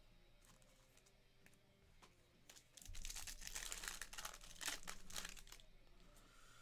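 Crinkling of a trading-card pack wrapper being handled, starting about two and a half seconds in and lasting about three seconds.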